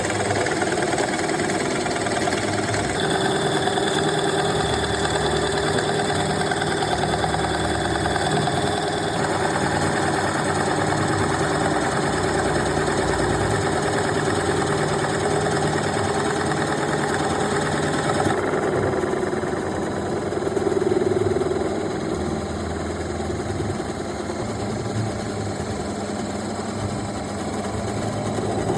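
Power drill running steadily as it bores into a block of teak, the motor hum shifting abruptly in tone a few times.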